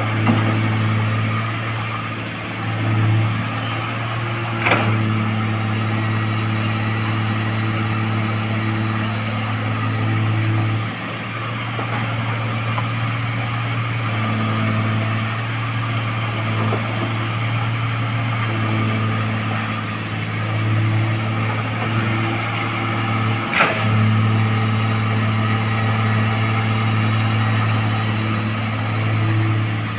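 Heavy diesel engine of earthmoving machinery running steadily with a deep drone, its load rising and falling now and then, with two sharp knocks, about five seconds in and near the end.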